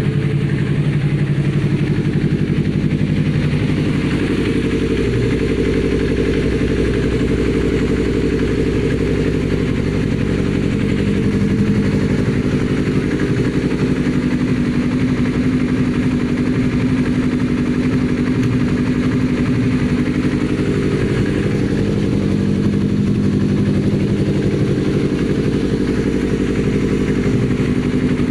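Yamaha R25's 250 cc parallel-twin engine idling steadily through an aftermarket Akrapovic exhaust, with a soft, bassy note.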